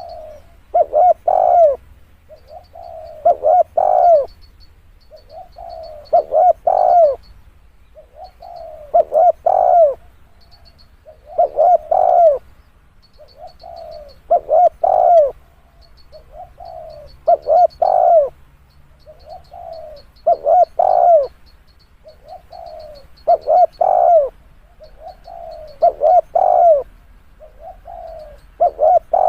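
Spotted dove cooing: the same short phrase of a few coos repeated about every three seconds, about ten times. The last note of each phrase is the loudest and bends up then down in pitch.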